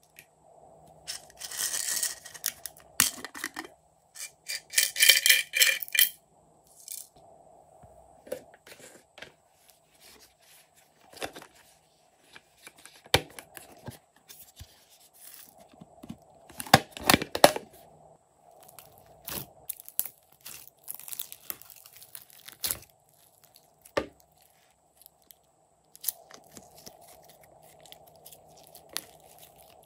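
Hands working glossy slime and handling plastic containers: a string of sticky crackles, clicks and taps. There are two longer noisy bursts in the first six seconds, and the loudest cluster of crackles comes about 17 seconds in.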